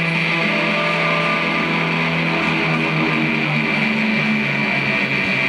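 Electric guitar playing held, overlapping notes over a steady high tone, the lower notes shifting in pitch about halfway through.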